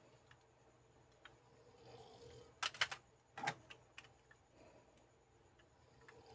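Small plastic Kyuranger Kyutama toys being handled and set down: a quick cluster of sharp plastic clacks a little under three seconds in and one more about half a second later, with faint small clicks around them.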